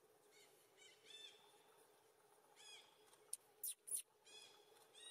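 Faint bird calls: short arched chirps repeated every half second or so. A little past the middle, three short, sharp, hissy high bursts stand out as the loudest sounds.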